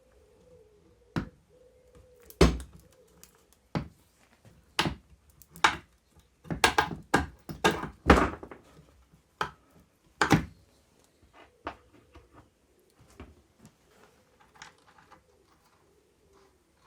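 Irregular sharp metal knocks and clanks of tools, bolts and suspension parts being handled while the front suspension arms are bolted to a Triumph TR7's front subframe. The knocks are loudest over the first ten seconds or so and give way to lighter ticks near the end.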